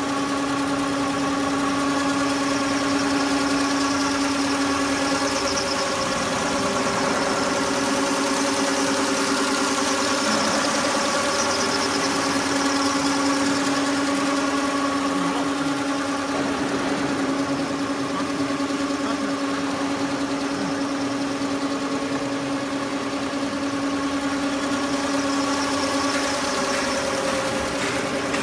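Multi-head sleeping bag quilting machine running, its row of sewing heads stitching straight lines through fabric and batting: a steady mechanical hum with several held tones over a dense, fast chatter.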